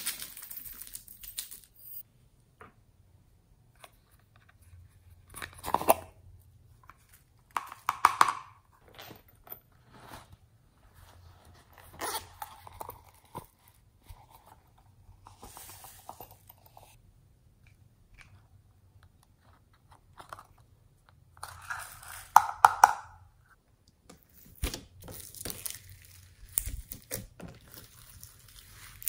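Close-up handling of crinkly packaging and add-ins being tipped into a dish of slime, heard as separate crinkling and tearing bursts of a second or so. Near the end comes a run of short sticky clicks and pops as the slime is stretched and folded.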